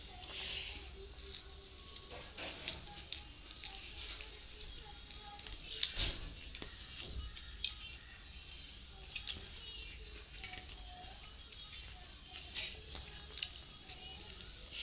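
Close-up eating sounds: wet chewing and mouth smacking as rice and curry are eaten by hand, mixed with fingers squishing and mixing rice on a steel plate, in irregular sharp clicks and crackles.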